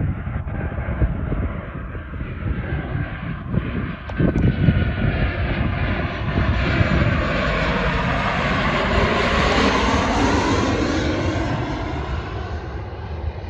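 Jet airliner passing close overhead: a low rumble gives way to the engines' roar, which swells with a sweeping, shifting pitch past the middle and eases off near the end.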